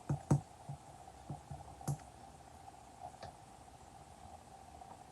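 Slime being pressed and worked by hand, giving soft sticky clicks and pops, most of them in the first two seconds and one more about three seconds in, over a faint steady hum.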